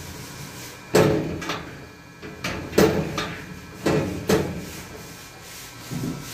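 Steel panel board cabinet door and latch being handled and shut: about six sharp knocks in three pairs, with rubbing and scraping of hands on the enclosure between them.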